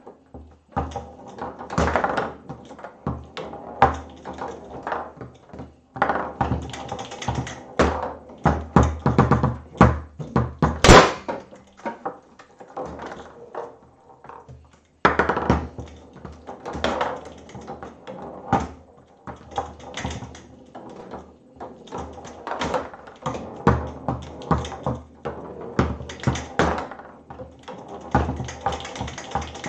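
Foosball table in play: the ball knocking off the plastic men, and the rods clacking as they are slid and turned, in a quick, irregular run of taps and thunks. One sharper, louder knock comes about eleven seconds in.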